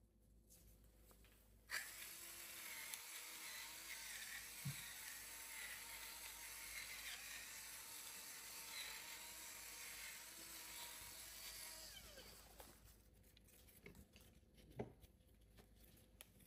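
A steady hiss starts suddenly about two seconds in and fades away about ten seconds later, with a single click partway through.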